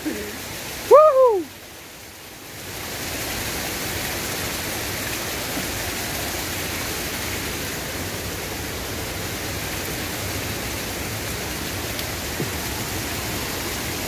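Steady rush of water from the waterfall, rising about two and a half seconds in and holding even to the end. A short voiced exclamation is heard about a second in.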